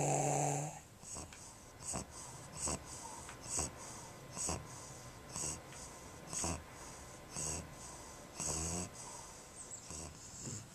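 Pug asleep, snoring and wheezing: one loud drawn-out snore at the start, then a short raspy breath about once a second. It is the noisy, obstructed breathing of an extremely brachycephalic (flat-faced) dog.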